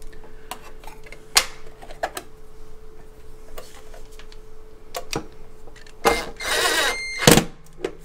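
Light metallic clicks and taps as the sheet-metal cover plate is set over the wiring on top of an electric water heater. About six seconds in, a cordless drill/driver runs for about a second, driving a quarter-inch top plate screw, and then comes a single sharp knock.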